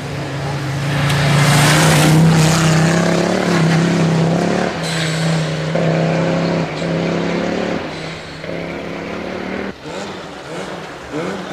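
Historic rally car engine held at high revs as the car passes on a forest stage, its note breaking off and picking up again several times. Near the end a second rally car approaches, its engine revs rising.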